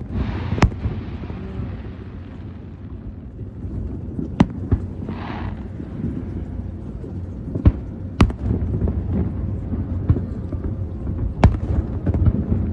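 Aerial fireworks exploding over the water: about eight sharp bangs at uneven intervals, some in quick pairs, a hiss after the first and another about five seconds in, over a steady low rumble.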